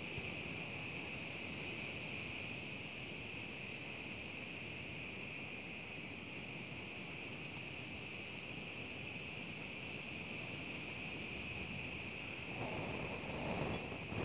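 Steady chorus of insects: a continuous high shrill buzz in several pitches at once, without a break.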